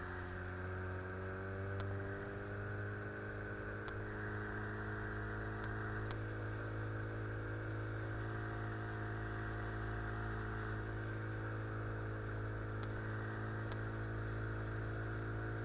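Outboard motor pushing an inflatable boat, running at a steady speed, its pitch settling slightly in the first few seconds.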